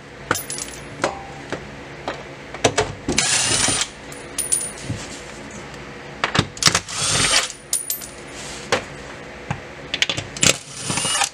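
Cordless impact driver spinning off heat-shield nuts in three short bursts, about three and a half seconds apart, with light metallic clicks and clinks from the socket and nuts between them.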